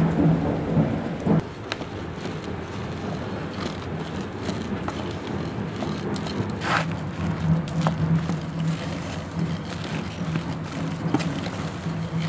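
Wooden spatula mashing and stirring soft boiled tapioca in an aluminium pot: a steady wet squelching and scraping, with a few short knocks of the spatula against the pot.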